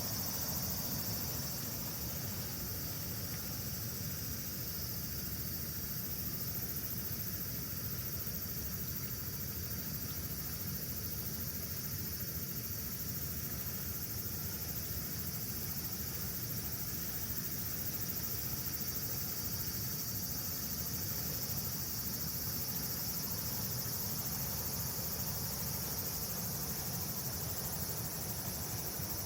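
A steady, unbroken chorus of insects trilling high, over the low, even rush of the rain-swollen river.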